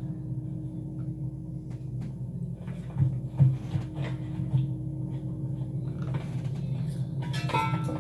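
A steady low mechanical hum with a few short knocks and thuds scattered through it.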